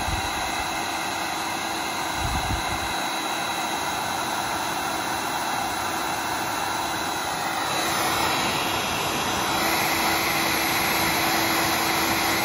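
Electric heat gun blowing hot air onto a shrink tube over a robotic lawnmower's signal cable splice, to seal it: a steady rushing blower with a faint fan whine, a little louder about eight seconds in.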